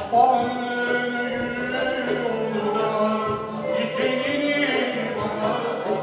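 Turkish classical music (Türk Sanat Müziği) choir singing a held, flowing melody together with an instrumental ensemble.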